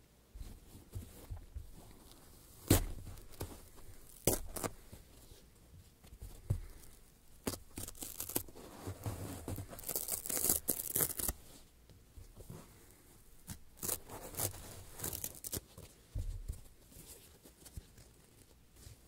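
Foam blocks handled close to the microphones, scratched and squeezed, making irregular sharp clicks and scratchy crackles, with a denser stretch of rustling about halfway through.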